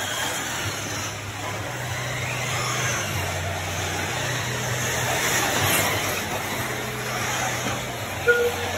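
Electric 1/8-scale RC truggies racing on a clay track, their motors whining up and down as they accelerate and brake, over a steady din of tyres and running cars. A short electronic beep sounds near the end.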